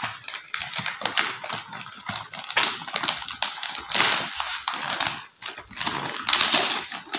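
Gift wrapping paper being torn open by hand: a run of irregular rustling, crackling rips.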